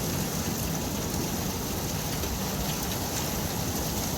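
Heavy rain pouring steadily in a severe thunderstorm; the sound cuts off abruptly at the end.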